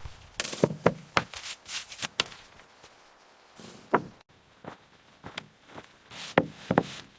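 An irregular series of sharp knocks and thuds, a quick run of them in the first two seconds and then single knocks spaced further apart.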